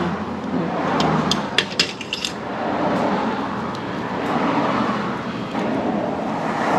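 Sharp metallic clicks and taps of a T-handle tool and metal parts on a small scooter carburetor as it is worked on by hand, bunched between about one and two and a half seconds in, over a steady rushing background noise.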